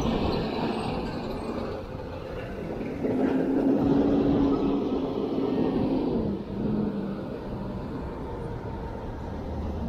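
City street traffic and rushing noise heard from a moving bike. About three seconds in, a vehicle's engine hum grows louder and holds a steady tone, then falls in pitch a little after six seconds as the vehicle passes.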